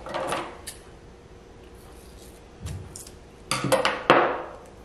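Duct tape being pulled off its roll and cut with scissors: small clicks of handling, then two short ripping rasps about three and a half and four seconds in, the second the loudest.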